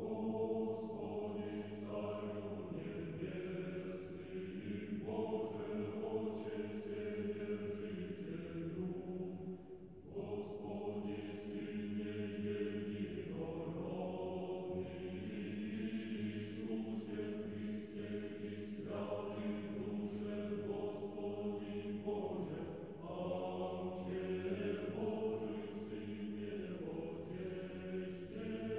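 Background music: a choir singing slow, sustained Orthodox chant, its phrases held for several seconds and shifting every few seconds.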